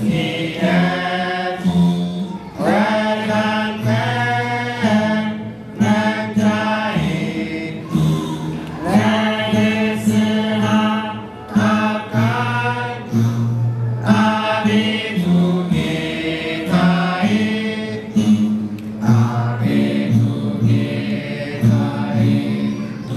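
Ethiopian Orthodox begena mezmur: male voices chanting a sacred song in held, changing notes over several begenas, the large ten-string lyre plucked with the fingers, whose low buzzing notes run steadily beneath the singing.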